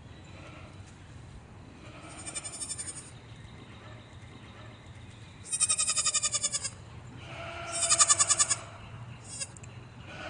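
Goats bleating: four quavering bleats, the two loudest in the second half, with a short one near the end.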